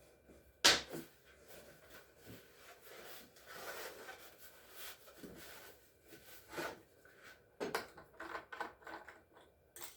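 Hands handling the plastic chainsaw and oil bottle: a sharp knock about half a second in, then soft rubbing and scattered clicks later on.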